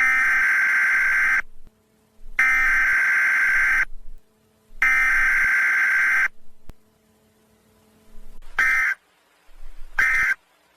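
Emergency Alert System digital (SAME) data tones: a harsh, buzzing warble sent three times as long bursts about a second and a half each. Then, from about 8.6 s, three short blips follow, matching the end-of-message code.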